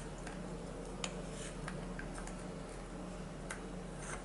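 Faint, irregular clicks and ticks, about five in all, as pliers-type tool tips filed to fit turn the slotted metal nut out of a plastic BCD inflator button. A steady low hum runs underneath.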